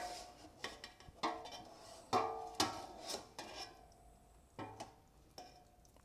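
Metal utensils knocking and scraping against a large stainless-steel stockpot while a heavy braised pork hock is lifted from the broth: about nine sharp clanks, each with a short metallic ring, irregularly spaced and thinning out in the last couple of seconds.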